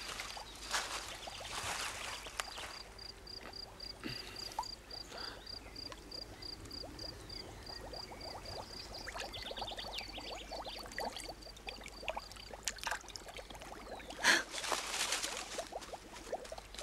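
Water splashing and trickling, with a high chirp repeating about three times a second until about twelve seconds in. A louder burst of noise comes about fourteen seconds in.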